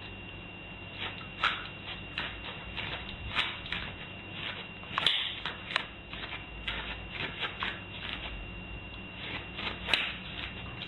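Irregular light clicks and scuffs, roughly one or two a second, from a small dog's claws on a doormat and tile floor, over a faint steady high whine.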